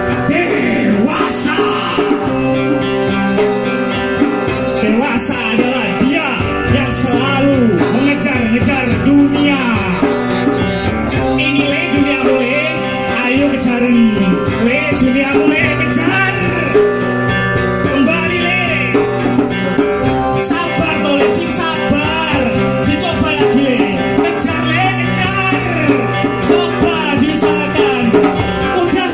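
Live band music through stage speakers: a strummed acoustic guitar with a man's voice singing into a microphone.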